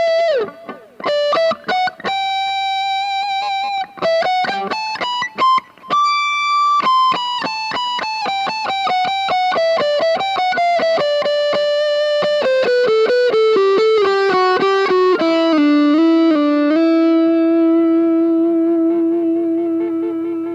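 Aria Pro II PE electric guitar playing a single-note lead line. A held high note slides down near the start, then come more held notes, a fast run of notes stepping downward, and one long sustained note near the end.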